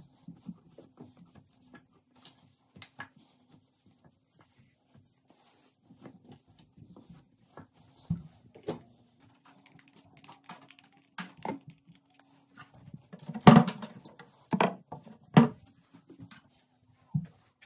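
Cleaning cloth wiping a bathroom sink and countertop, with scattered knocks and clinks of bottles and items moved on the counter. A cluster of louder knocks comes about three-quarters of the way through. A faint steady hum runs underneath.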